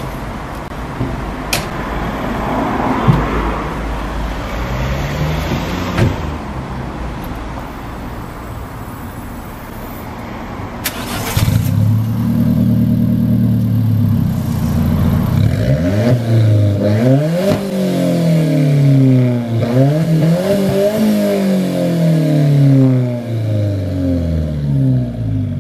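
Alfa Romeo 4C's 1.7-litre turbocharged four-cylinder engine starting about eleven seconds in with a loud flare, then revved again and again in blips that rise and fall in pitch.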